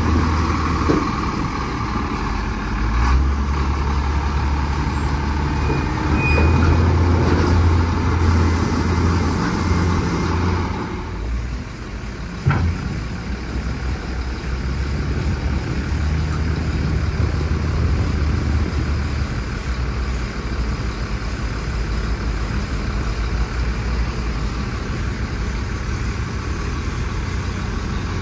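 Heavy diesel dump truck engines idling and running close by, a deep steady rumble that is louder over the first ten seconds, with a single short sharp knock about twelve seconds in.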